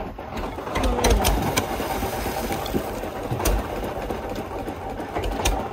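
Boat engine running steadily at low speed while a gill net is paid out over the side, with scattered knocks and thumps from the net and its floats against the deck.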